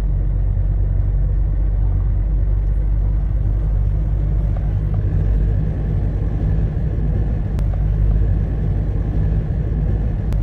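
Storm wind buffeting the microphone: a loud, steady low rumble.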